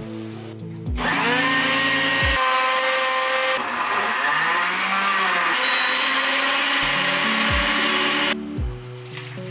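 Philips ProBlend 6 countertop blender grinding raw potato chunks with water into a smooth purée. The motor starts about a second in with a rising whine, its pitch dips and recovers midway as the load shifts, and it cuts off near the end. Soft background music with a beat plays under it.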